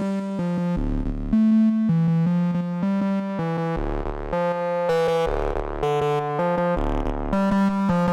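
Trance music: a synthesizer plays a melodic run of chords over intermittent bass notes, with no drum beat.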